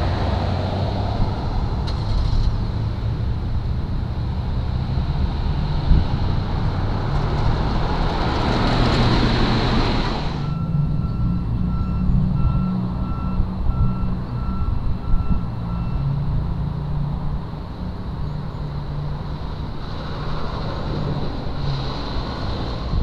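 Street traffic passing, growing to a loud pass that cuts off abruptly about ten seconds in. Then a vehicle back-up alarm beeps in a steady even run for about five seconds, over a constant low rumble.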